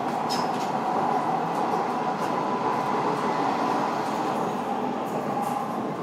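Docklands Light Railway train running, heard from inside the carriage: a steady rumble with a constant humming tone and a few short clicks from the wheels and track.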